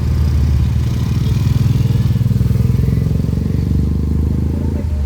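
A motor vehicle engine running with a steady low rumble that swells slightly around the middle.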